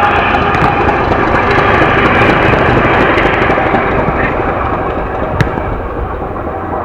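An aircraft flying over, a loud steady rumble with a faint whine in it that slowly fades in the second half. A single sharp knock sounds about five seconds in.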